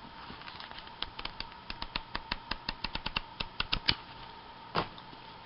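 A paper pad being handled: a quick, irregular run of light clicks and taps, then a short rustle near the end, over a faint steady hum.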